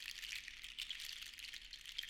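Seashells rattling against one another as a shell shaker is shaken, a continuous dense stream of fine, crisp clicks.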